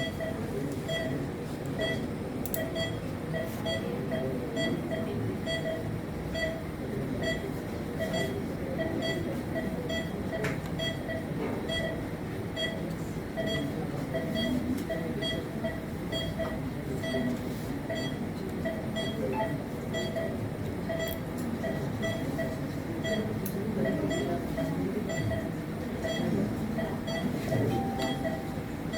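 Patient monitor beeping in short, evenly spaced pulses at about one and a half a second, the pulse-oximeter tone that tracks the patient's heartbeat, over a steady low hum of the operating theatre.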